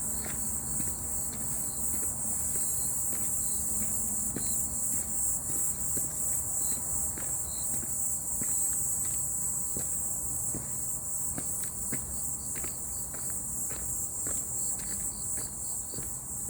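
Footsteps at a steady walking pace on a forest path, under a continuous high-pitched chorus of insects.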